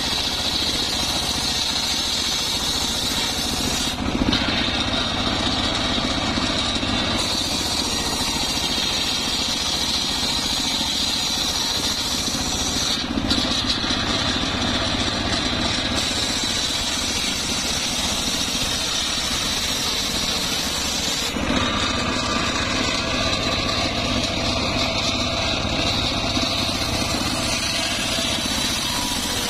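Homemade circular sawmill running steadily, its large spinning blade ripping a trembesi (rain tree) plank lengthwise, a continuous machine drone with a high blade whine. The sound shifts abruptly a few times.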